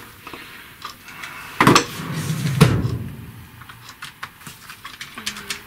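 Hand-tool clatter: rummaging through a drawer of tools, metal on metal, with two louder knocks in the first half. Small scattered clicks follow as a screwdriver is set to the screws of the Amiga 500 keyboard's metal back plate.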